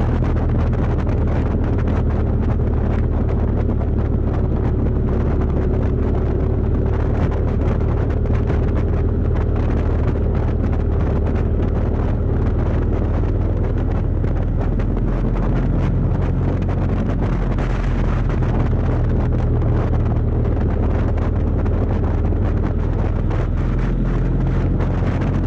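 Steady wind rushing over the microphone of a moving motorcycle, over the constant low drone of a Kawasaki VN750 Vulcan's V-twin engine holding an even speed.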